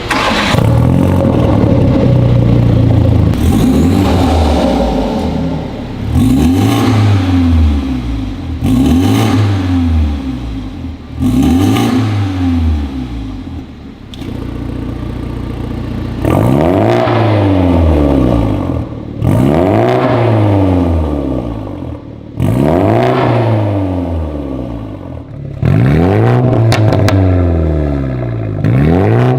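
BMW G20 330i's B48 2.0-litre turbocharged four-cylinder engine revved up and let fall again and again, about every two seconds, with exhaust pops and crackles as the revs drop, most plainly near the end.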